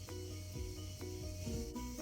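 Background music with short, evenly paced notes over a low steady hum.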